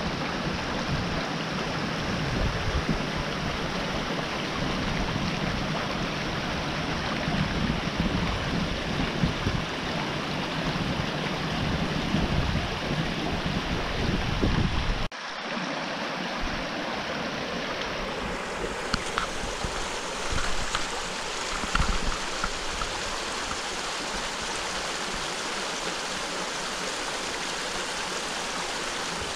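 Small rocky brook babbling over stones in a steady rush of water. In the first half a gusty low rumble runs under it. About halfway through the sound cuts abruptly to a steadier, closer rush of water without the rumble.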